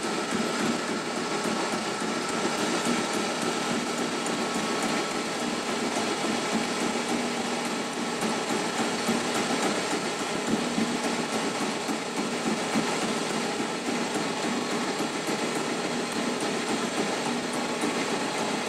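Pullmax-type reciprocating sheet-metal machine running, its tool striking rapidly and steadily on aluminium sheet as the sheet is fed through, a dense, even clatter.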